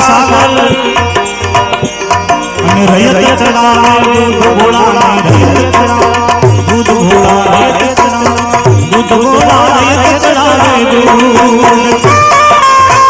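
Instrumental interlude of a live Gujarati devotional bhajan: tabla drumming under melodic instruments playing the tune, with a long held note near the end.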